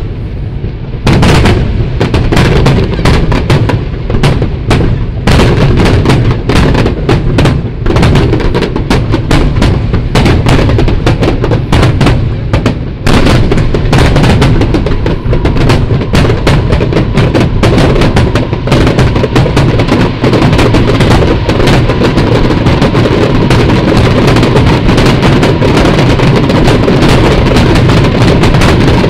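Aerial firework shells bursting in a dense, loud barrage, many bangs overlapping each second, picking up about a second in and carrying on without a break.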